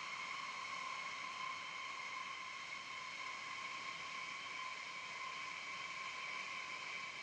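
Jet aircraft engines running steadily: an even rushing hiss with a steady high whine.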